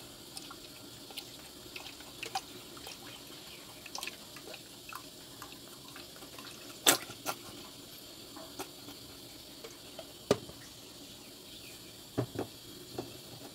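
Water splashing and dripping in a steel bowl as pounded pandan leaves are mixed into it. Scattered small splashes and clicks, the loudest about seven seconds in and about ten seconds in, with a few more near the end.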